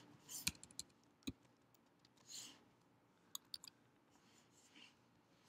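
A few faint, scattered keystrokes on a computer keyboard: isolated clicks in the first second and a half, then a quick group of three about three and a half seconds in.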